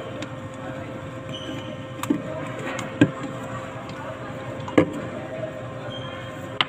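A plastic drink bottle being handled on a tabletop: four sharp knocks and clicks, the loudest about three seconds in, over a steady low hum and murmur of background noise.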